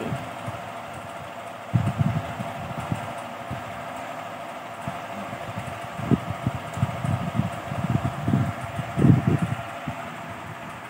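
A steady mechanical hum made of several tones, with irregular low rumbles around two seconds in and again from about six to nine and a half seconds in.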